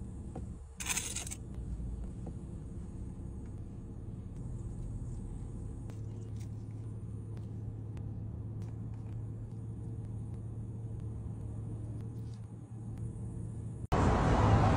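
Steady low hum of a Dodge SRT's engine idling, heard inside the cabin, with a brief rustle about a second in and a few faint clicks. Near the end it cuts suddenly to a loud wash of street noise.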